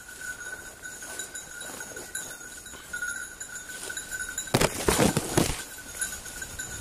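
Undergrowth brushing and crackling as someone pushes through dense brush, loudest about four and a half to five and a half seconds in, with faint distant baying of griffon vendéen hounds and a faint steady high ringing behind it.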